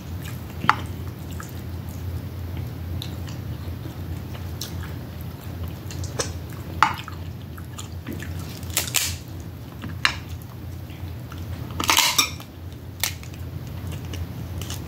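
Close-miked eating of snow crab and Dungeness crab: scattered sharp clicks, cracks and mouth smacks as shell is broken and meat is eaten, the loudest cluster about three quarters of the way through, over a steady low hum.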